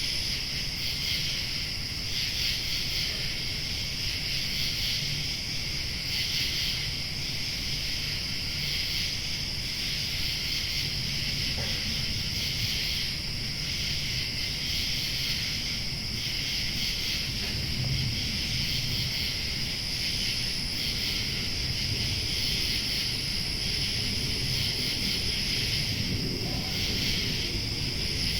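Summer-night insect chorus: a dense, steady trilling with a slight pulse, joined now and then by a thinner, higher insect buzz that comes and goes. A low rumble runs underneath, swelling briefly around the middle and near the end.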